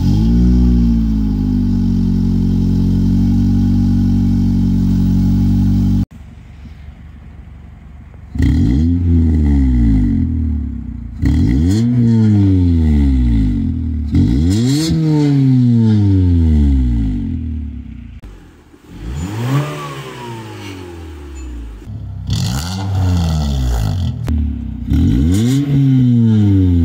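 A Honda Civic EM2's 1.7-litre four-cylinder runs through an aftermarket exhaust (4-1 header, high-flow cat, Jones resonator, Flowmaster 60 series muffler, 2.25-inch pipe, 4-inch tip). It first holds a steady high idle just after a cold start. Then comes a series of about six throttle blips, the revs jumping up and sinking back each time, with an exhaust note that is still raspy when revved.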